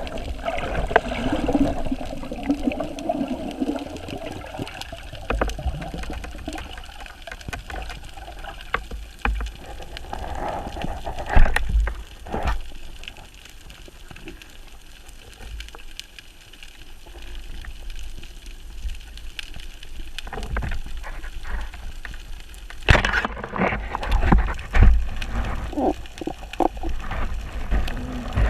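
Water sloshing and gurgling in rough sea, with scattered knocks and a rumble underneath; about three quarters of the way through, it turns choppier with louder splashy bursts.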